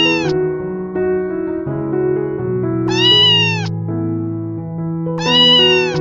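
A domestic cat meowing three times, about two and a half seconds apart, each meow a short call that rises and then falls in pitch. Background music with held notes plays underneath.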